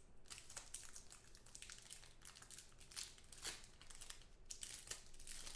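Foil trading-card pack wrapper crinkling in the hands as it is torn open and handled: a faint, irregular run of crackles.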